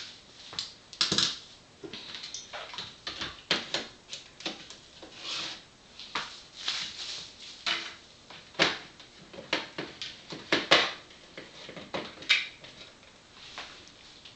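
Irregular clicks, taps and knocks of objects handled on a countertop: meter probes set into a plastic tub of water and plastic meters picked up and put down.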